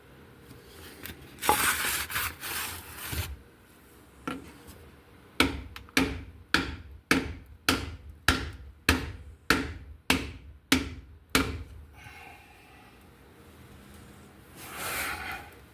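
A big hammer striking a wooden board laid over a part to drive it into place, about eleven even blows at roughly two a second, after a short scraping of wood against metal.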